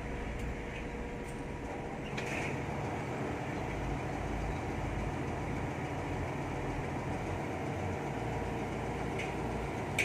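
Diesel engine of a Hitachi UH07 hydraulic excavator running steadily, with a low rumble and a few faint ticks.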